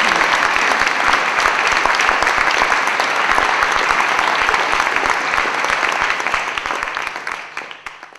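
Audience applauding: dense, steady clapping from a large crowd that fades away over the last second or so.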